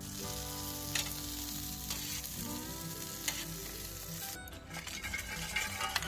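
Fat sizzling on roasting meat: a steady loud sizzle with a few crackles, easing off about four seconds in, over background guitar music.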